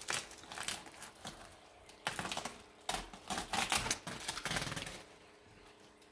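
Kitchen scissors snipping through plastic wrapping on a smoked ham, with the plastic crinkling and rustling as it is cut and pulled away: a quick, irregular run of sharp snips and crackles that dies away near the end.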